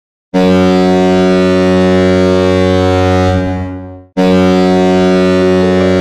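Hockey goal horn sounding two long, deep blasts. The first comes in about a third of a second in and fades out around four seconds, and the second starts straight after. A short tune comes in over the second blast near the end.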